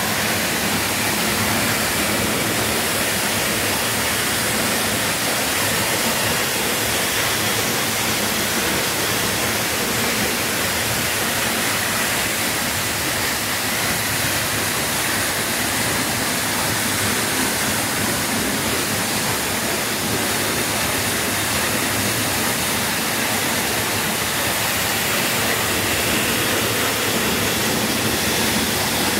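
Tamanawas Falls plunging onto rocks, heard close up from behind the falling water: a loud, steady rush of water.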